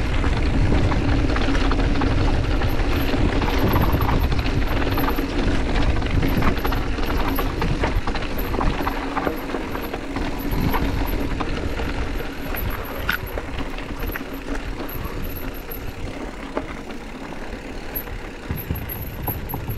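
Mountain bike riding a trail: wind rumbling on the camera microphone, tyres on dirt and gravel, and the bike rattling and clicking over bumps, a little quieter in the second half.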